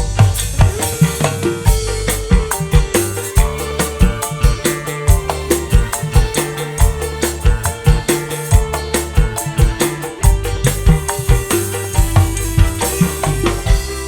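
Dangdut koplo band music played live through a large PA sound system, with heavy bass and a fast, dense beat of drum and percussion hits under a held melodic note.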